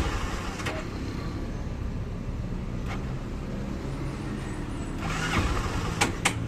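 Honda CB300 single-cylinder motorcycle engine running just after being started. Several sharp clicks cut through the running: one under a second in, one about three seconds in, and two close together near the end. These are the start-up noise the owner is asking about.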